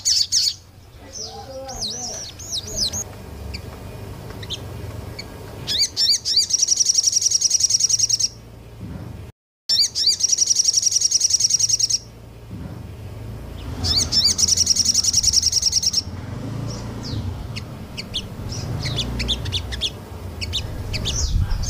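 Small songbirds singing: bursts of very rapid, high repeated notes, each lasting about two seconds and coming three times, with scattered chirps and whistled glides between them. The sound drops out for an instant about halfway through.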